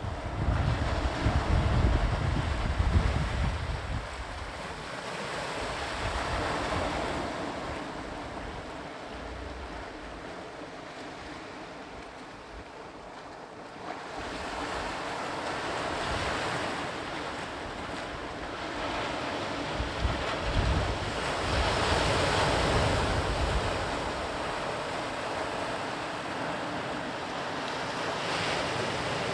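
Sea waves breaking and washing ashore, the surf swelling and falling back every few seconds. Wind buffets the microphone in gusts, loudest at the start and again about two-thirds of the way through.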